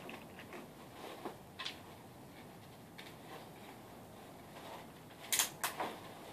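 Metallic clicks of a big-bore rifle being handled between shots: a couple of light clicks a little over a second in, then three sharp clicks in quick succession near the end.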